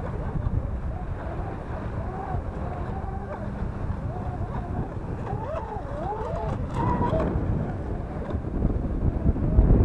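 Pro Boat Zelos 36 twin RC catamaran's twin brushless motors whining, the pitch wavering up and down as the hull hops across choppy water. Wind rumbles on the microphone and grows louder near the end.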